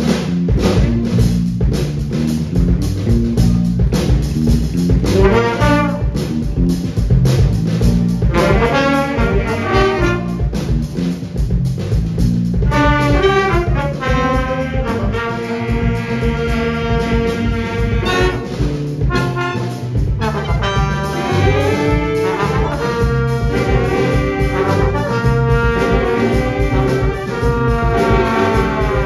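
Big band playing live: saxophones, trumpets and trombones in horn lines over a steady bass and rhythm pulse. The horn section grows fuller about halfway through.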